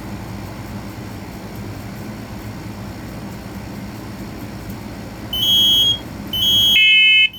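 A steady low background hum, then smoke alarms begin sounding about five seconds in, as the Kidde i12010SCO combination smoke and carbon monoxide alarm is put into test on an interconnected system. First comes a single high beeping tone. A second alarm with a lower, multi-tone beep joins near the end, in half-second beeps.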